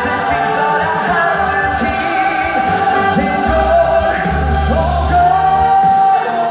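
Live musical-theatre song: singing over a band, with a note held for about a second near the end.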